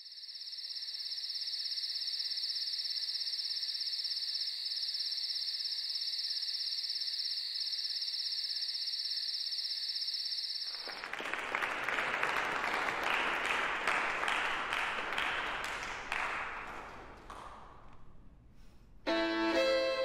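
A steady, high, pulsing evening insect chorus for about the first half. It cuts to audience applause that fades out, and near the end violin and piano begin playing.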